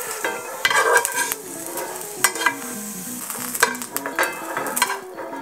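Metal kitchen tongs clicking against a frying pan and a ceramic bowl as charred onion halves and carrot pieces are lifted out, about eight sharp clicks over a light sizzle from the hot dry pan.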